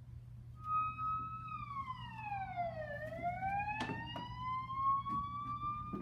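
A siren-like whistling tone holds, then slides down about an octave and glides back up to hold again. Two sharp knocks come about a second apart as it rises.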